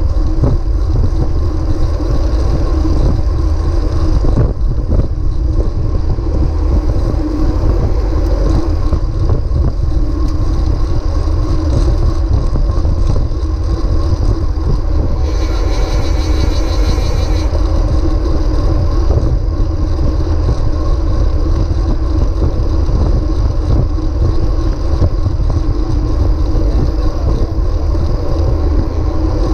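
Wind buffeting the microphone of a camera mounted on a moving road bike, with tyre and road noise: a heavy, steady low rumble. About halfway through, a high buzz comes in for about two seconds.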